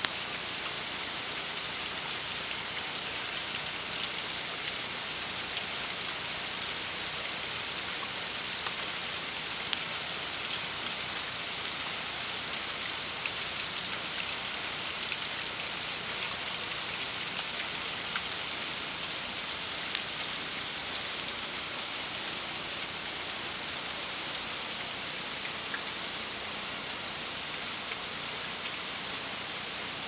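Steady hiss of falling, splashing water, with scattered light ticks of drops.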